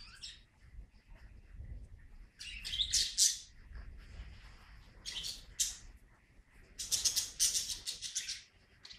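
Birds chirping in quick high-pitched clusters, about two and a half seconds in, again around five seconds, and in a longer run from about seven to eight and a half seconds.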